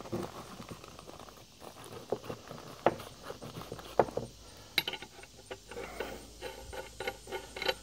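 Metal parts and hand tools being handled on a wooden workbench: irregular light clicks and knocks, coming faster in the second half.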